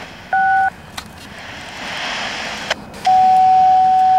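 Railroad radio scanner: a short two-tone touch-tone (DTMF) beep, then radio static with a couple of squelch clicks, then about three seconds in a loud, steady single-pitch tone that holds to the end. These are the radio tones of a call to the train dispatcher.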